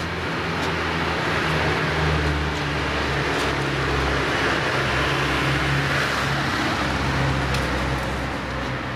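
A motor vehicle's engine running close by in the street, a steady low hum under road and traffic noise.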